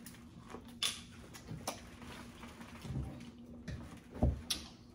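Eating a seafood boil by hand: a few sharp clicks and smacks and some soft thumps, as shells are cracked and food is handled and chewed.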